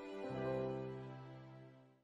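Slow background music of held chords. A lower chord comes in about a quarter second in, then it fades away to silence before the end.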